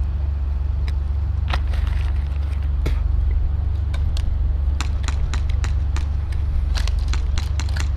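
Scattered sharp cracks of gas-powered airsoft pistols and shotguns firing, with BBs striking, coming irregularly and more thickly in the second half. Under them runs a steady low rumble.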